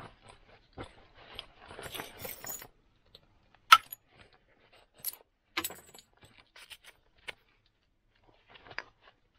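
Flint being knapped by indirect percussion: a wooden billet strikes a moose-antler punch set against a flint axe preform, giving a handful of sharp clacks, the loudest about four seconds in. Before the strikes comes a couple of seconds of handling noise as the flint and tools are shifted.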